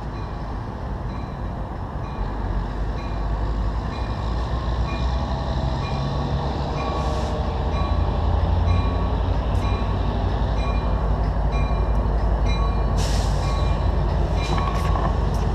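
Train running past with a heavy low rumble that grows steadily louder. Short high tones repeat about once a second, and there is a brief hiss near the end.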